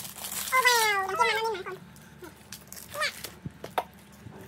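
A small child's voice: one drawn-out, high, wavering call lasting about a second, starting half a second in, then a short high sound near the middle. Light clicks of plastic toys and packaging being handled sound throughout.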